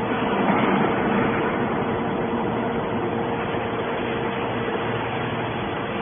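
Factory machinery running: steady mechanical noise with a constant hum through it, a little louder about a second in.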